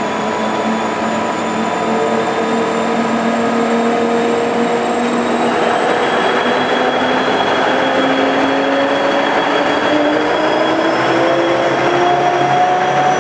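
Ikarus 260.T1 trolleybus heard from inside the passenger cabin, its electric traction motor whining as the bus accelerates. Several whining tones climb steadily in pitch together over a steady running noise.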